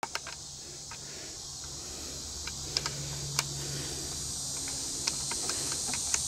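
Scattered light metallic clicks of a spark plug being turned by hand in the cylinder head of a 1963 Evinrude 18 hp Fastwin outboard. The plug will not seat because the threads of the plug hole are stripped. A steady high hiss lies under the clicks.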